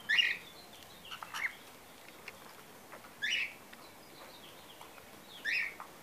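Caged cockatiels calling: three loud, short chirping calls about two and a half seconds apart, with a few softer chirps between the first two.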